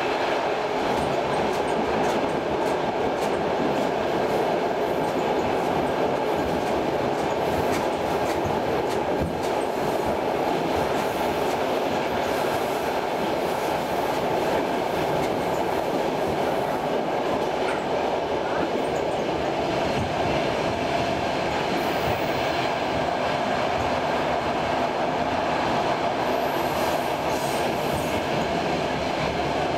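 Steady running noise inside a Saltsjöbanan Class C10 electric commuter train moving at speed: wheels rolling on the rails with light clicking from the track.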